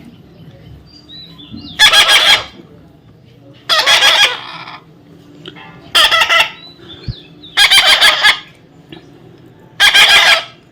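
Pet parrot screeching loudly five times, harsh calls about two seconds apart.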